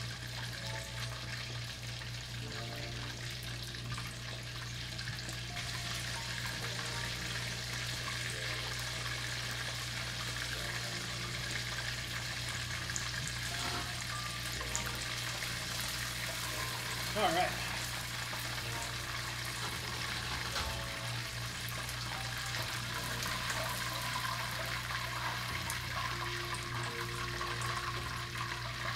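Karaage chicken pieces deep-frying in hot oil in an enameled cast-iron Dutch oven: a steady sizzling hiss of bubbling oil. About two-thirds of the way through, a brief sliding pitched sound stands out above it.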